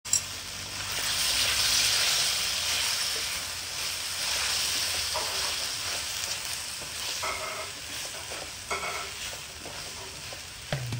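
Chicken breast and vegetables sizzling in a stainless steel wok while a wooden spatula stirs and tosses them, with a few short squeaks along the way.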